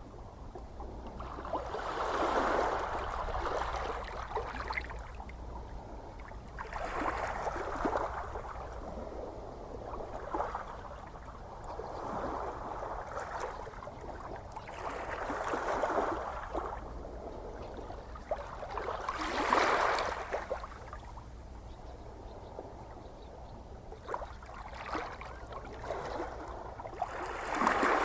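Gentle ocean waves washing in, each one swelling and fading every few seconds over a steady low rumble, the strongest surges late in the stretch.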